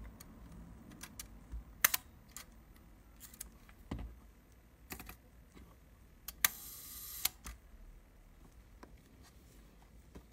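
Leaf shutter of a Konica Pearl III folding camera being cocked and fired by hand: a series of sharp mechanical clicks. About two-thirds of the way through it fires at a slow speed: an opening click, a buzz from the shutter's timing gears lasting under a second, then a closing click.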